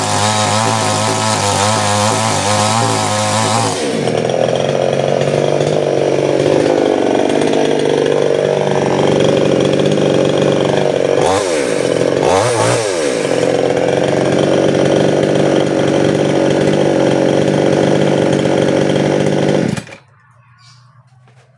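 Stihl 799 two-stroke chainsaw running hard. About four seconds in its pitch drops to a lower, heavier note; near the middle the revs dip and recover twice, and near the end the engine cuts off suddenly.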